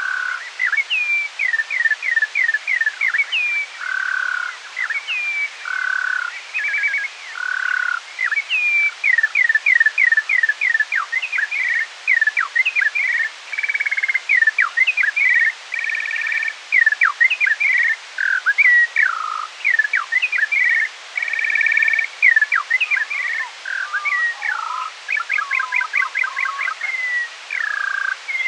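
Skylark song slowed to half speed, an octave lower than live: an unbroken stream of quick downward-sweeping notes, with trills, a few held buzzy notes and a fast run of repeated ticks near the end, over a steady hiss.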